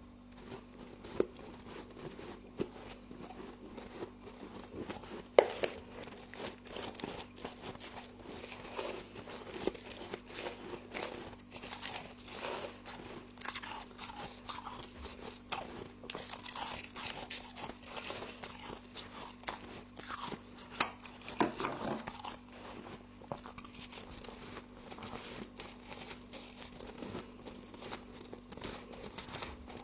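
Close-miked crunching and chewing of frost, with many irregular crisp bites and crunches, over a faint steady hum.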